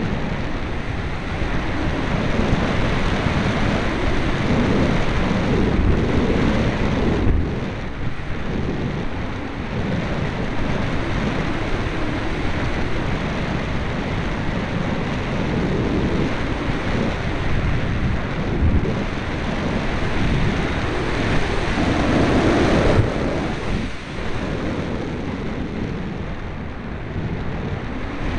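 Airflow rushing over the onboard camera microphone of a Parkzone Radian glider in flight: a loud, steady rushing noise that swells and dips, with no motor tone.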